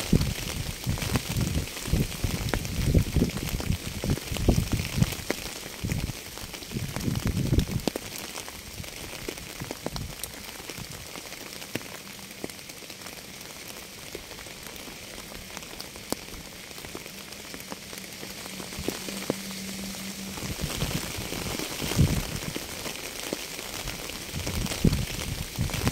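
Steady rain falling, an even hiss with many scattered sharp drop clicks. Low surges come and go through the first third and again near the end, and the middle is calmer.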